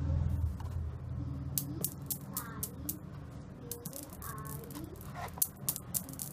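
Steel balls of a small Newton's cradle desk toy clicking against one another in a steady rhythm, about four clicks a second, starting about a second and a half in.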